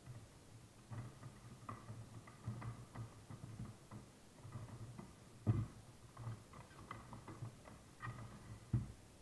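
Small toys being handled on a tabletop: irregular light taps and clicks, with two louder thumps about halfway through and near the end.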